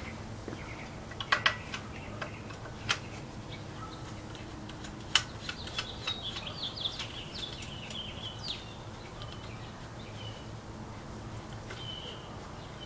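A few sharp metal clicks and taps of a wrench working loose the carburetor on a Willys 4-134 engine. A bird chirps a quick run of short notes in the middle, and once more near the end.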